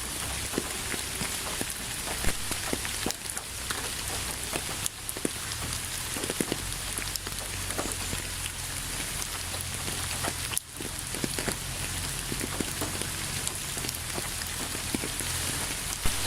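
Steady rain falling, with many separate drops striking close by as sharp little hits over the even hiss. The sound dips briefly about ten and a half seconds in.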